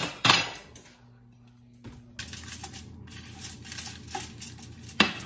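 Small clicks and knocks as a toaster oven is loaded, then a steady low hum from about two seconds in as the oven runs, with a sharp click near the end.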